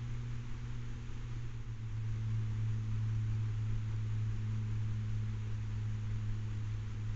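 Steady low hum under a constant hiss, getting slightly louder about two seconds in.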